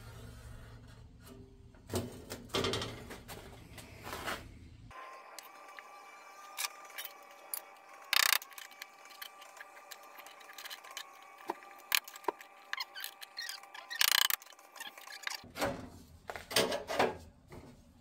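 Hand tools and sheet-metal parts being handled: scattered metallic clinks, taps and knocks, the loudest a couple of sharp strikes about eight and fourteen seconds in.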